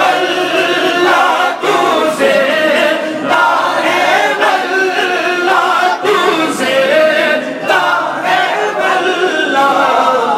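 Unaccompanied naat, an Urdu devotional song, sung by a male lead over a microphone with many voices singing along in unison.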